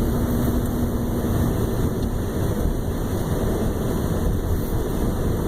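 Steady road and engine noise inside a moving truck's cab, with a low steady hum that stops about a second and a half in.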